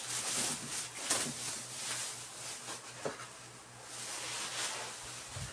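Rustling and handling noise from unpacking a PC case, with a few light clicks or knocks, the sharpest about a second in and three seconds in.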